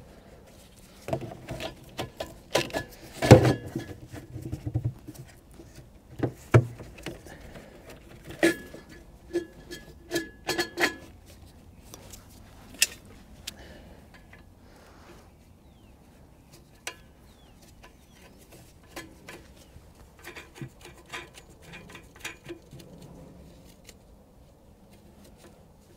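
Clicks, knocks and rustling as gloved hands fit the air filter element and its cover back onto a Cummins Onan QG 4000 RV generator. The loudest knocks fall in the first ten seconds or so, then only scattered light clicks.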